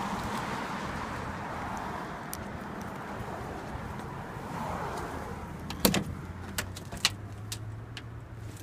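A car's driver's door being unlatched and opened: one loud click about six seconds in, then several lighter clicks, over a low steady hum and outdoor background noise.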